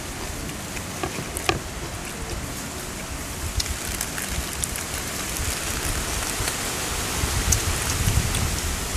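Steady hiss of wind outdoors, with uneven low buffeting of wind on the microphone and a few faint clicks from eating at the table.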